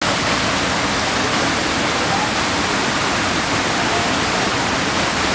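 Steady rush of running water from a stream, an even hiss with no breaks.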